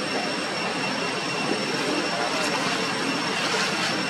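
Steady outdoor background noise: a continuous rushing hum with a few constant high-pitched tones held above it.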